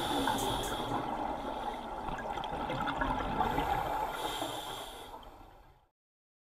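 A scuba diver's regulator breathing underwater: rushing, bubbling exhalations and hiss, heard through a GoPro's underwater housing. It fades out to silence near the end.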